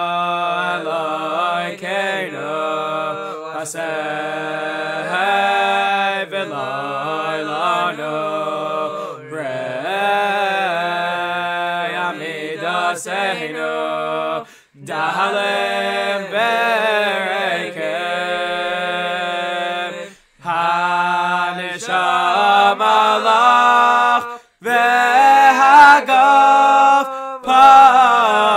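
Men singing a Jewish song a cappella in harmony, the phrases broken by a few short pauses.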